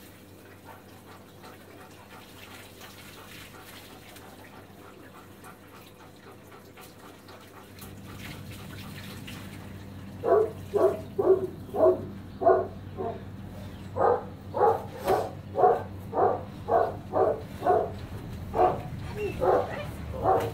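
Hand-held shower spray running faintly at first, then a dog barking loudly and repeatedly from about halfway through, roughly two barks a second.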